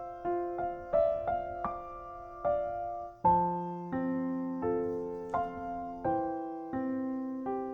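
Background music: a slow, gentle piano melody, single notes struck and left to ring, moving to lower sustained notes about three seconds in.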